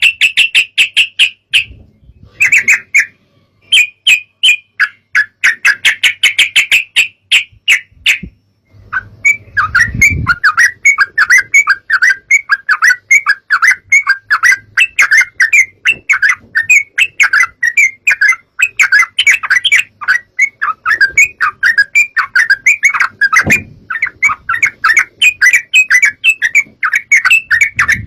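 Yellow-vented bulbul (trucukan) lure recording: loud rapid chirping chatter. Several short phrases with brief gaps open the stretch, and the chatter runs without a break from about nine seconds in.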